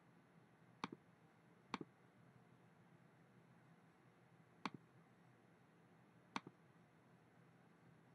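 Four short, sharp computer mouse clicks, each a quick double tick of press and release, spaced irregularly over several seconds against near silence.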